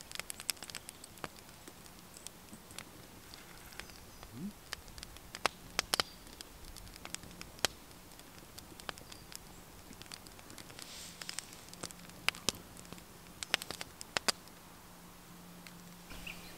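Small wood campfire crackling, with irregular sharp pops and snaps.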